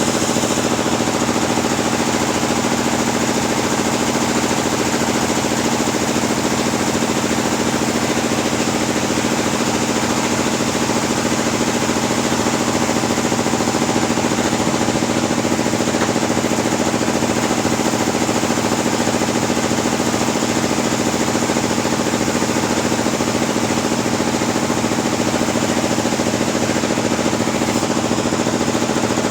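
Sawmill machinery running steadily while timber is cut into 6x12 beams: a constant, unchanging machine drone with a steady hum.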